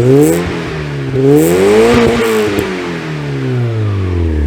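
1993 Mazda Miata's 1.6-litre four-cylinder engine revved through a new MagnaFlow cat-back exhaust: the revs climb, drop back, climb again to a higher peak about two seconds in, then fall slowly toward idle, with a few sharp crackles as they come down.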